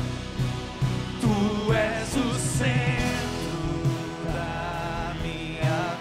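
A Christian worship song being played by a band, with a singer's voice over the accompaniment.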